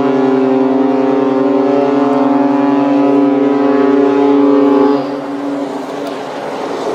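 Cruise ship's horn sounding one long, steady blast at a single low pitch. It stops about five seconds in, leaving a fading echo.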